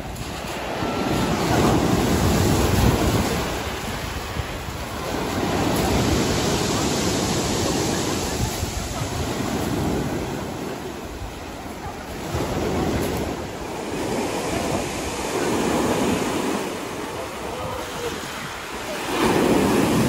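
Sea surf breaking and washing up a pebble beach, swelling and fading every few seconds, with wind buffeting the microphone.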